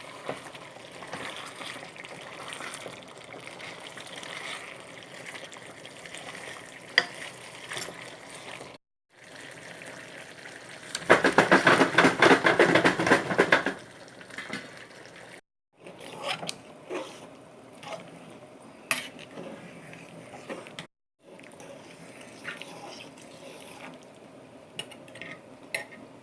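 A pot of brown stew chicken simmering and sizzling, with scattered clicks of a utensil against the pot. About eleven seconds in comes a louder stretch of rapid clatter, like vigorous stirring, lasting nearly three seconds. The sound cuts out completely three times, briefly.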